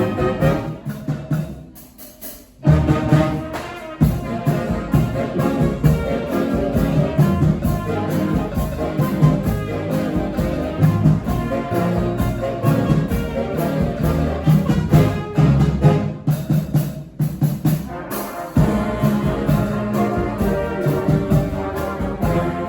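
A street brass band playing a tune live, with the horns in full. About two seconds in the band drops back to a brief quiet break, then comes in loudly again.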